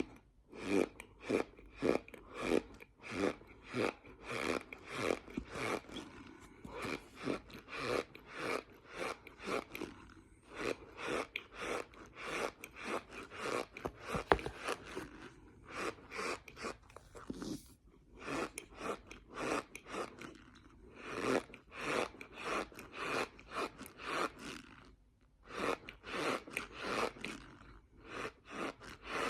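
Close-up chewing of raw cornstarch, squeaky and crunchy, about two chews a second with short pauses between mouthfuls.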